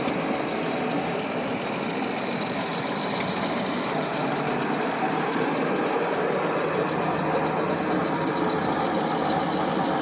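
Engine of a truck-mounted hydraulic borewell pipe-lifting rig running steadily at a constant speed while the rig hoists pipe from the borewell.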